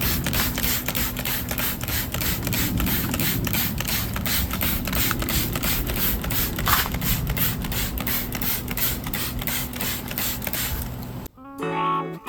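Trigger spray bottle squirting degreaser in quick, even pumps, about four a second. It cuts off near the end, and guitar music comes in.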